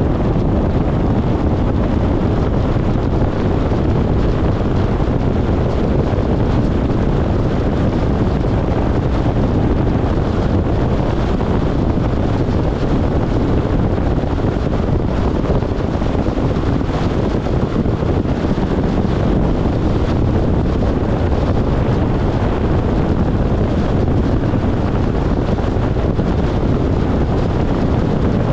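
Steady wind noise rumbling on the microphone over the road noise of a vehicle on the move.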